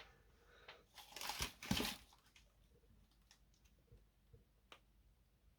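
Two brief rustling, scraping noises about a second in, from a power lead and plug being handled, then a few faint small clicks.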